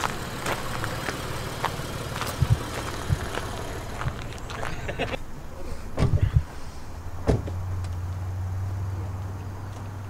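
A car engine idling with a steady low hum that grows stronger in the second half. Scattered sharp knocks sound over it, and a cluster of loud thumps comes about six seconds in.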